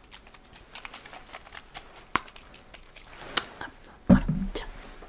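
Close-miked handling sounds: a run of small, irregular taps and clicks, a sharper click about two seconds in and another about three and a half seconds in, then a soft thump about four seconds in.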